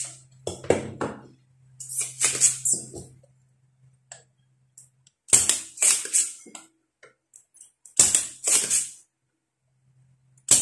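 Spring-loaded desoldering pump being cocked and fired again and again on solder joints to remove a component: sharp plastic snaps with a short rush of air, in clusters every two to three seconds.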